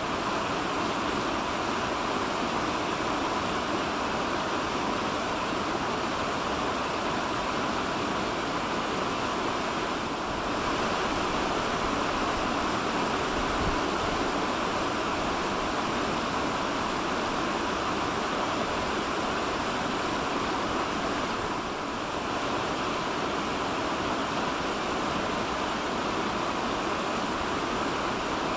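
Fast-flowing stream rushing steadily over rocks, a continuous noise of tumbling white water.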